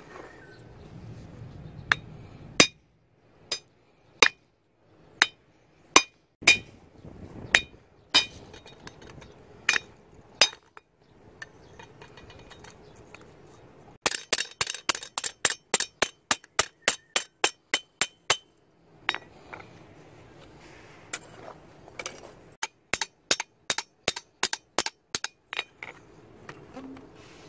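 Hand hammer striking red-hot steel and a punch on an anvil, each blow a sharp clang with a ringing tail. Slow blows come about one a second, then about halfway through there is a quick run of lighter blows, about four a second, and another quick run near the end.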